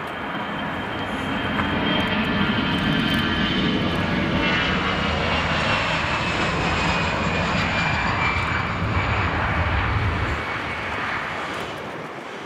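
Airbus A320-family twin-jet airliner on its takeoff roll, its engines at takeoff thrust: a loud steady jet rumble with a high whine that slowly falls in pitch. The rumble swells about a second and a half in and eases off near the end.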